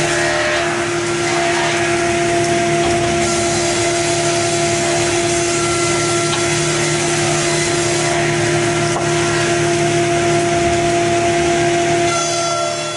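Amix OF-300 board edger running and sawing the edges off wooden boards as they feed through on its belt conveyor: a steady machine sound with a constant pitched tone over the rasp of the cutting wood, fading out near the end.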